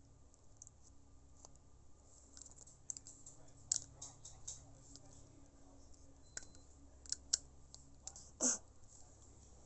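Faint scattered clicks and light taps at irregular intervals, with one short, louder sound falling in pitch near the end.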